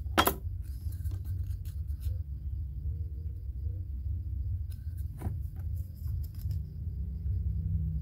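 Light clicks and taps of thin cut aluminium can pieces and a steel ruler being handled, with one sharper click just after the start and two spells of lighter clicks, over a steady low hum.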